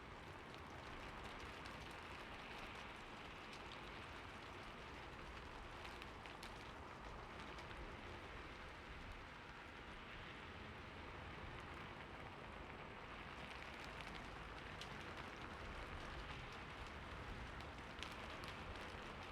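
Soft rain falling steadily: an even hiss with scattered sharp ticks of single drops.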